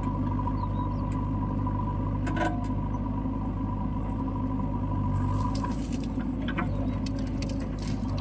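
Diesel engine of the backhoe or tractor running steadily, with a sharp knock about two and a half seconds in and scattered light clicks later on.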